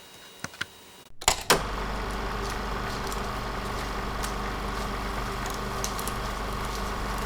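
RC-converted Bruder bulldozer's electric drive motor and gearing running steadily, with a constant low hum and scattered light clicks. It starts suddenly about a second and a half in, after a couple of knocks.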